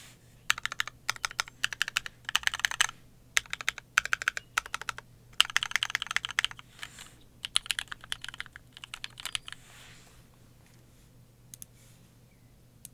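Typing on a 60% mechanical keyboard with linear switches (Kailh Cream stems in MX Black housings, lubed and filmed), an aluminium plate and GMK keycaps: bursts of rapid keystrokes. The typing thins out and stops about ten seconds in, with a couple of last clicks near the end.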